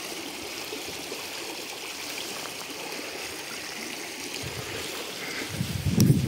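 Small shallow brook running steadily, water trickling over its bed. About five and a half seconds in, louder low thuds and rumbling set in.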